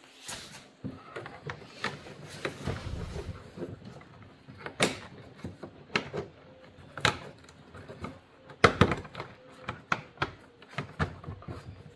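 Plastic door trim cover piece being handled and pressed into place on a door panel: a string of irregular clicks, taps and knocks, busiest about nine seconds in. Its retaining clip does not lock, which the owner puts down to a broken clip.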